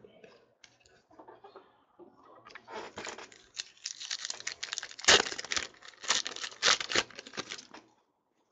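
Foil wrapper of a Panini Prizm trading-card pack being torn open and crinkled by hand: faint rustling at first, then from about two seconds in a run of crackling rips, loudest around the middle, that stops shortly before the end.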